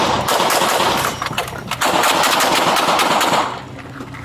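Police officers firing several rounds in rapid succession, in two volleys: the first runs into the first second, and the second starts about two seconds in and stops shortly before the end.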